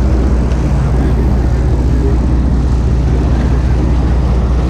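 Boat engine running steadily: a low, even drone with a rushing noise over it.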